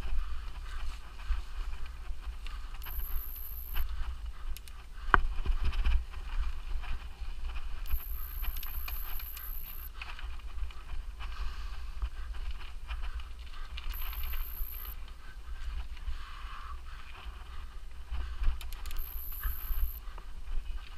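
Mountain bike ridden over a forest trail: a steady low rumble with a rough, rattling haze from the ride, and a sharp knock about five seconds in. A faint high-pitched tone comes and goes every few seconds.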